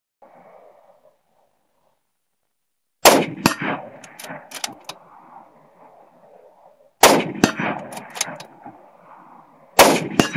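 Three rifle shots from a scoped rifle fired off a bipod, about three, seven and ten seconds in. Each report is followed under half a second later by a second sharp crack and a long decaying tail.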